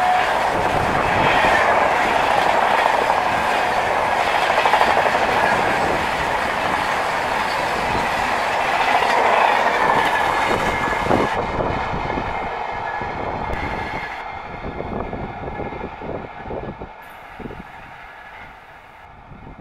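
Rajdhani Express passenger coaches rolling past at speed, their wheels clattering over the rail joints. The sound stays loud for about ten seconds, then fades steadily as the train moves away.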